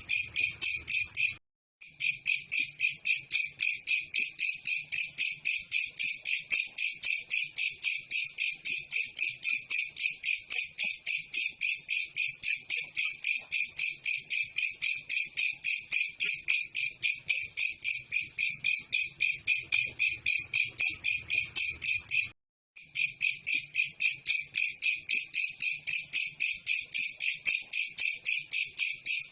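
A belalang kecek katydid singing a fast, steady run of buzzing chirps, about four a second and high-pitched. It breaks off abruptly twice for about half a second.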